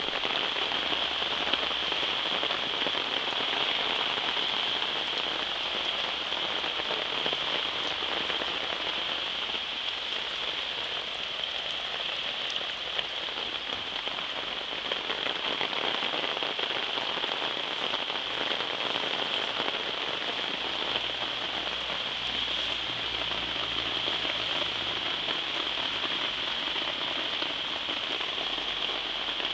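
Steady thunderstorm rain falling on garden plants and ground, an even downpour hiss with no let-up.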